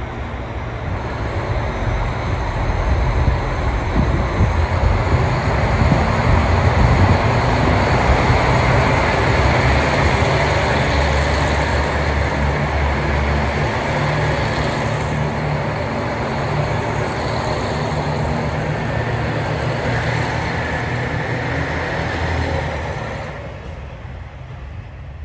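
KiHa 261 series diesel multiple-unit train rolling past under power, its diesel engines giving a steady low rumble over wheel and running noise. The sound swells over the first few seconds and falls away near the end as the last car moves off.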